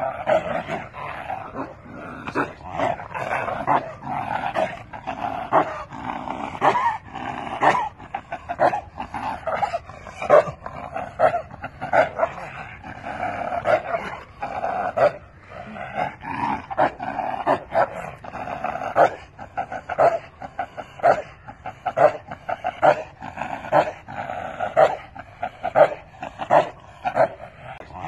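A dog barking over and over, sharp barks coming about once or twice a second without a break.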